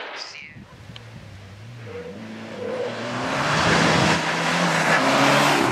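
Mitsubishi Lancer Evo X rally car's turbocharged four-cylinder engine accelerating hard down a straight, heard from inside the car. The revs climb and drop with each upshift, with tyre and road rush, growing much louder about three seconds in.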